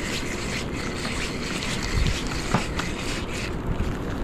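Steady rush of wind and rain on the microphone over the river, with scattered light ticks and a couple of dull knocks about two and two and a half seconds in.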